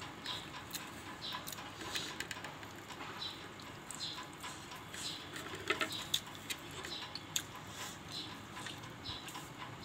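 A person eating by hand, chewing and smacking her lips in irregular small wet clicks, with a few louder clicks about six seconds in.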